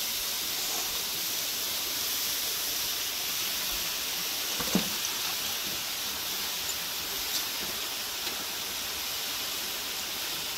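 Steady hiss of vegetables cooking in a steel kadai over a lit gas burner. One short knock comes about halfway through.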